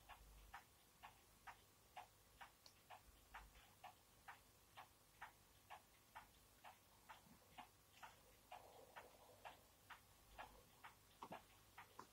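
A clock ticking faintly and evenly, a little over two ticks a second, with a soft whoosh about eight and a half seconds in.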